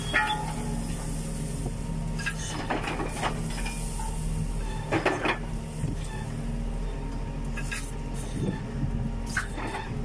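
Tractor engine running steadily, heard from inside the cab while it tows a folded disc harrow, with intermittent clanks and rattles.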